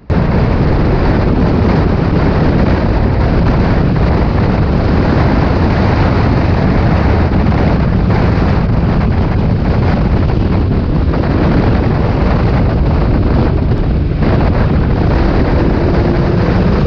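Loud in-car racing noise from a Mk4 Ford Fiesta stock car under way on a wet track: engine, drivetrain and road noise running flat out, with wind buffeting the microphone. There is one brief easing about three-quarters of the way through.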